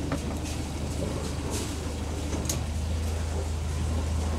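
Kent 28 motorboat's engine idling with a steady low hum, with a few light clicks on top.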